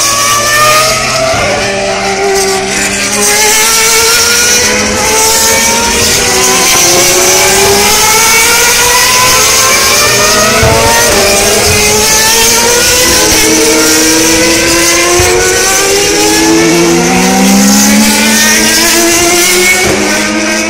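Open-wheel formula race cars accelerating past on track, their engines running loud at high revs. The pitch repeatedly climbs and drops back at each upshift, with several cars overlapping.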